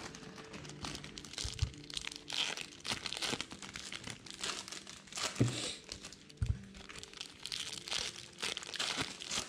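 Plastic-foil wrappers of baseball card hobby packs crinkling and tearing as the packs are ripped open by hand, with many short crackles and two dull low thumps.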